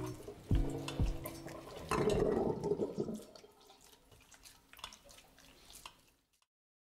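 Wet maesaengi seaweed being pressed by hand in a stainless mesh strainer to drain it: wet squelching and dripping water, with two soft thumps in the first second and a louder wet press around two seconds in, dying away to faint drips before going silent near the end.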